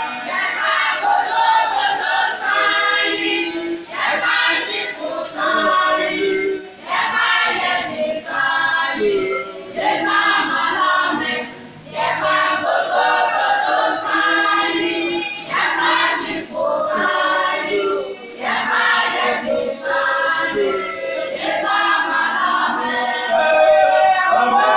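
A group of women and children singing together, in phrases of a few seconds with short breaks between them.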